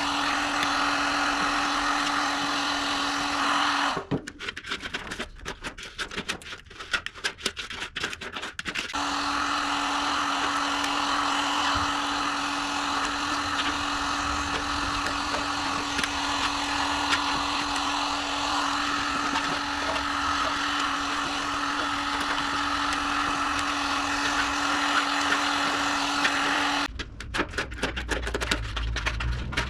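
Electric power tool running at a steady speed with a constant hum. It stops about four seconds in, leaving a few knocks and scrapes, starts again about nine seconds in, and stops again near the end.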